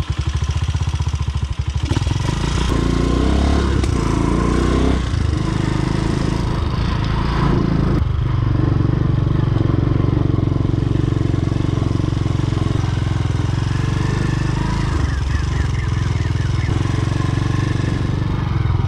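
A small motorcycle engine catching and picking up speed in its first couple of seconds, then running with its pitch rising and falling as it is revved and ridden, settling into a steady run.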